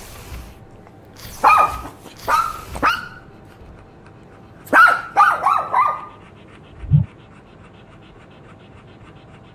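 A dog barking: three short barks, then a quick run of about five yips. A single low thump follows.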